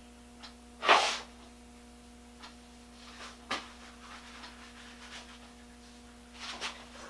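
Hand-work noises on a small metal drill chuck: a short, loud rushing scrape about a second in, then a sharp click and scattered light scrapes and ticks, over a steady low hum.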